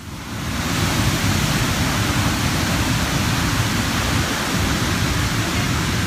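The Rhine Falls pouring and crashing into the river close by, a loud, steady rush of water noise.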